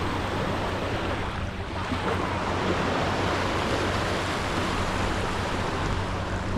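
Surf washing onto a sandy beach, mixed with wind on the microphone, over a faint low steady hum.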